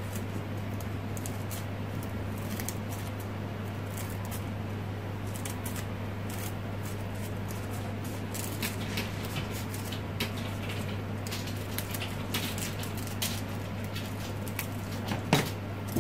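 Scissors snipping through folded crepe paper in a run of short, crisp cuts, coming thicker in the second half, over a steady low hum. A single louder knock comes near the end.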